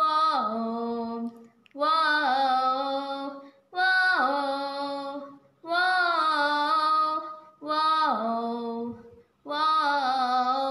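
A girl's solo voice singing unaccompanied: six phrases of held notes, each opening with a falling slide in pitch, broken by short pauses.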